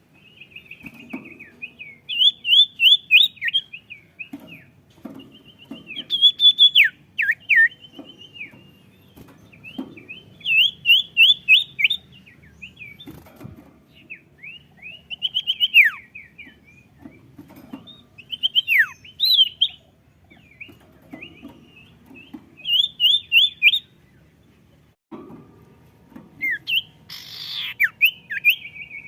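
A sirtu, a songbird kept by Indonesian bird-keepers, singing in full song: phrases of quick, rising and falling chirps, one every two to three seconds, with faint low knocks between them.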